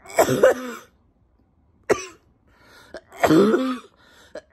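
A woman coughing in three bouts: one at the start, a short single cough about two seconds in, and a longer one at about three seconds. It is a cough she has had for three weeks and took for bronchitis.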